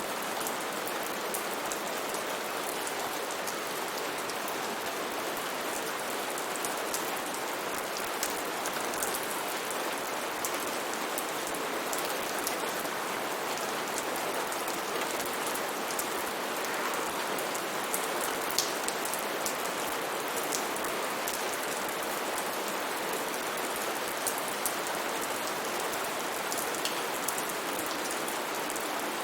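Steady rain falling, an even hiss with many small, sharp drop ticks scattered through it.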